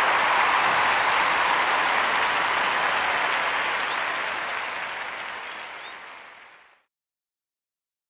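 Large audience applauding, the applause slowly fading away and then cutting off to silence near the end.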